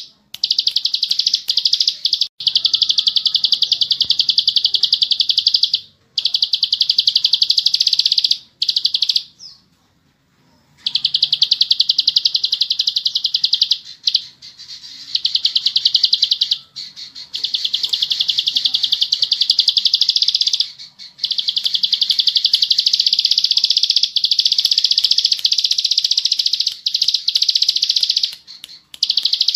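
Plain prinia (ciblek sawah) singing long, very fast rattling trills. Each run lasts several seconds and is broken by short pauses.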